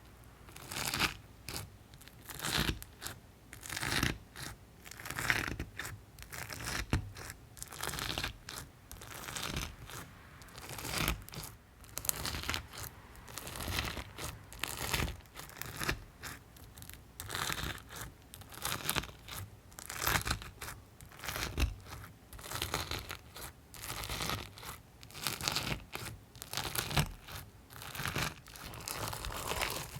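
Hands squeezing and pressing a gritty, grinding-textured slime, making a repeated crackling crunch roughly once a second.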